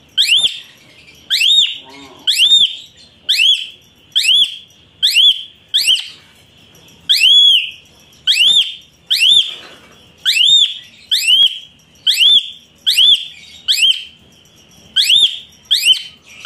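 A bird calling over and over: short whistled notes that each rise and fall quickly in pitch, about one a second.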